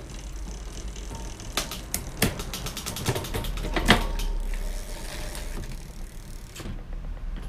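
Bicycle drivetrain on a workstand with the cranks turned by hand: the chain runs over the rear sprockets with a string of sharp clicks, including a fast even run of ratchet-like clicks about two seconds in. This is a shifting test after the shift-cable tension was adjusted.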